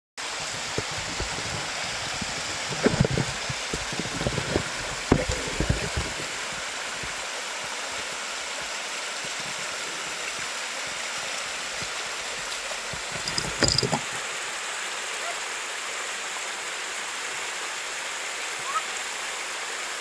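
A shallow woodland stream running over rocks and small cascades: a steady rush of water. A few thumps break in between about three and six seconds in, and again at about thirteen and a half seconds.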